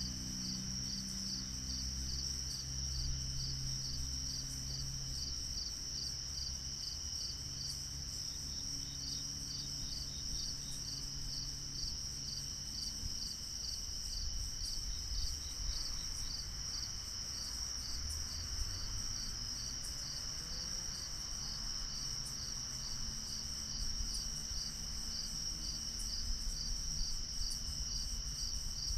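Night insect chorus, crickets or katydids chirping in a steady high drone with a regular pulsed chirp, over a low outdoor rumble.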